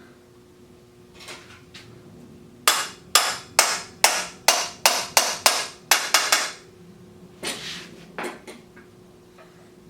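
Hammer blows: about a dozen quick, sharp strikes in a row, two or three a second, then two softer taps.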